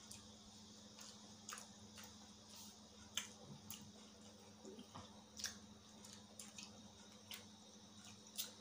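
Faint, irregular wet clicks and smacks of people chewing food and eating with their fingers, over a low steady hum.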